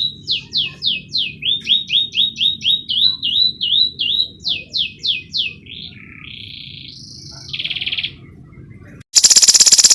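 Domestic canary singing: a run of quickly repeated, downward-sweeping chirps, then a short buzzy trill, then, about a second before the end, a sudden much louder, very fast rattling trill.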